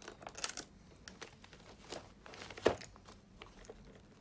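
Handling of a plastic blister tray and a small plastic toy pistol: light crinkling and scraping, a few quick clicks near the start, and one sharp click about two and a half seconds in as the pistol is fitted into a figure's hand.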